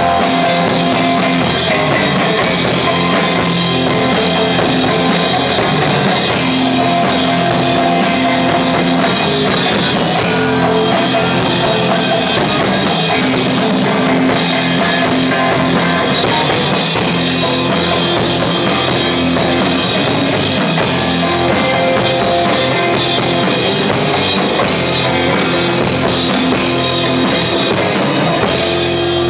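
A rock band playing live: electric bass, electric guitar and drum kit in a loud, steady instrumental passage.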